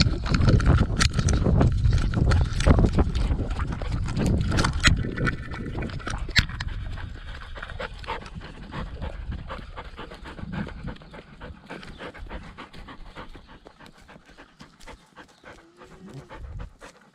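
Australian kelpie sheepdog panting hard right at a collar-mounted action camera as she runs, with knocks and rubbing of the camera mount. Loud for the first several seconds, then fading in the second half.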